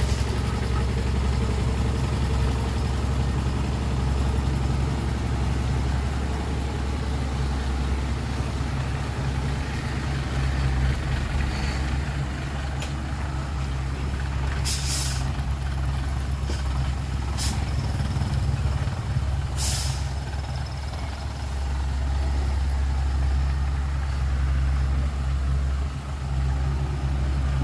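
Heavy diesel engines of a bulldozer and dump truck running steadily, with three short hisses of released air, typical of a truck's air brakes, a little past halfway.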